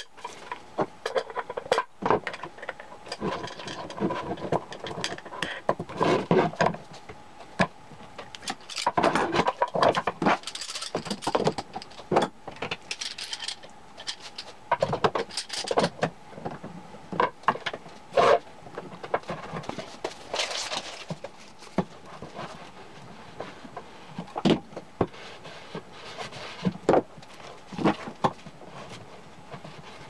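Handling sounds of a round chipboard disc and a metal bolt: irregular knocks, clicks and scrapes as the disc is turned and worked by hand.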